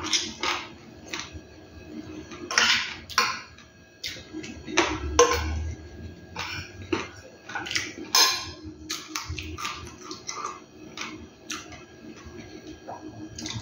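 Close-up eating sounds: chewing and smacking on pieces of fried chicken, in irregular short bursts, with occasional spoon clinks on the plate.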